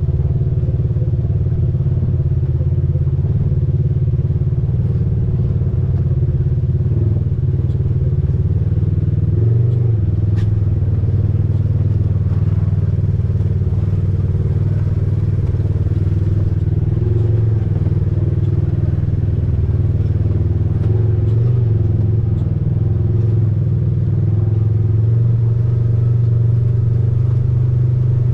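Side-by-side UTV engine running steadily while driving, a low, even drone that rises slightly in pitch about ten seconds in and again near the end.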